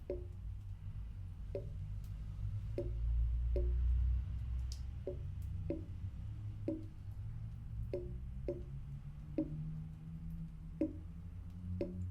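Water dripping from a faucet into a bathroom sink basin, about a dozen short pitched plinks at uneven spacing, roughly one a second, over a low steady hum.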